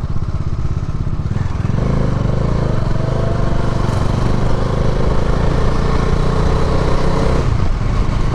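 Bajaj Dominar 400's single-cylinder engine and exhaust running steadily while the motorcycle is ridden, with a brief easing of the throttle near the end.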